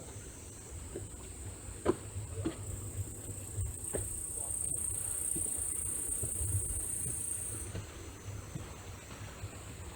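Insects chirring in a steady, high-pitched chorus. Part of it swells louder about a quarter of the way in and cuts off abruptly about three-quarters through, over a faint low rumble.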